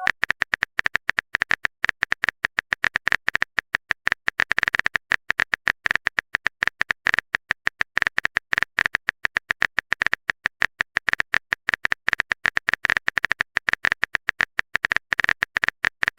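Phone keyboard typing sound effect: a fast, unbroken run of sharp clicks, about eight a second.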